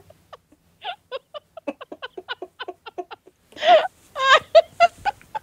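Women laughing: a run of quick, short giggles, then louder, higher laughs from about three and a half seconds in.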